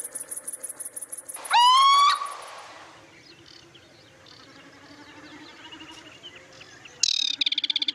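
A male little owl gives a single rising call about a second and a half in. It lasts about half a second and slides upward in pitch, over the fast, even pulsing of crickets. Near the end a loud, rapid pulsing trill starts.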